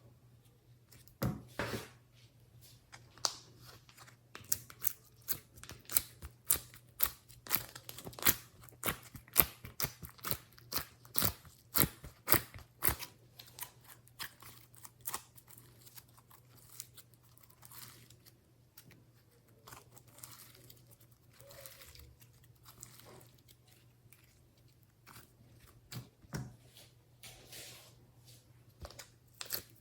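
Hands squeezing and pressing glossy slime, making irregular sticky clicks and pops. The clicks come thick and fast for the first half, then grow sparser and softer.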